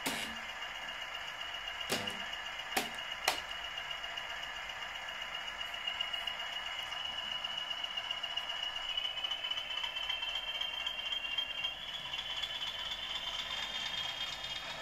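Model Class 20 diesel locomotive running over the track, its motor giving a steady high whine that rises in pitch about two-thirds of the way through as it speeds up. A few sharp clicks come in the first few seconds.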